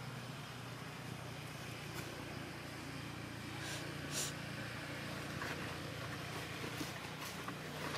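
A steady low hum, with a few short scratchy rustles and clicks as a young monkey paws at a plastic motorcycle helmet among dry leaves; the loudest comes about four seconds in.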